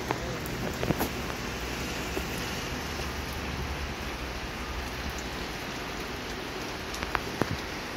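Steady rain falling, an even hiss of rain with a few sharp clicks about a second in and again near the end.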